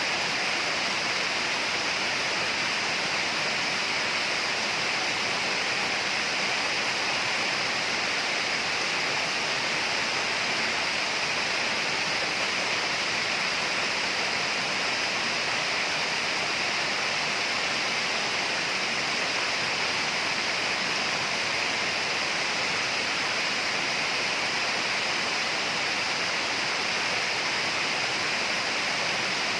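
Steady rushing of flowing water, like a forest stream or small waterfall, even and unbroken throughout.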